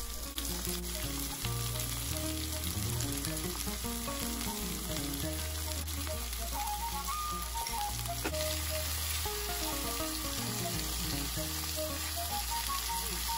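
Food sizzling as it fries in a pan, a steady even hiss, under soft background music with slowly changing notes and a bass line.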